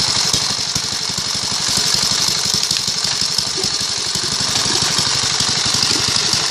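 A small engine running steadily at an even idle-like chug, with a steady hiss above it.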